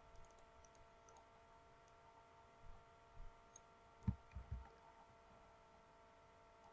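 Near silence with a faint steady electrical hum. A few soft computer-mouse clicks and low thumps fall about halfway through.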